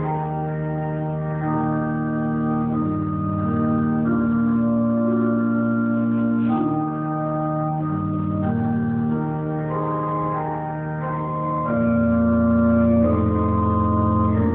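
Electronic organ playing slow, sustained chords that change every second or two, as prayer music.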